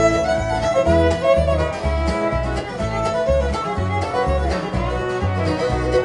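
Bluegrass band playing an instrumental break, a fiddle carrying the melody over guitar and banjo, with bass notes alternating on a steady beat.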